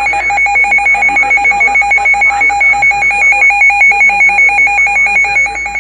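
Electronic emergency alert tone played over broadcast radio: a loud, rapidly pulsing two-pitch warble, about six pulses a second.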